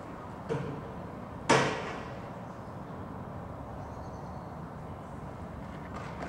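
Two sharp knocks about a second apart, the second much louder and echoing briefly.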